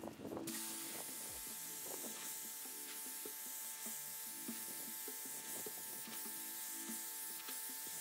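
Pressure washer wand spraying water onto a carpeted floor mat, rinsing out the cleaning foam: a steady hiss of spray that starts abruptly about half a second in, over a thin steady whine from the washer.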